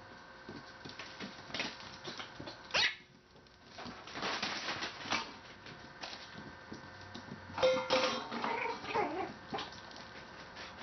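A dog's short high yelp falling in pitch about three seconds in, then a scuffle of noise, and a longer pitched bark with a wavering whine after it near eight seconds.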